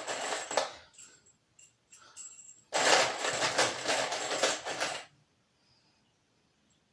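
Milwaukee Fuel Surge hydraulic impact driver driving screws. There is a short run that stops about a second in, then a longer run of about two seconds around the middle, then quiet.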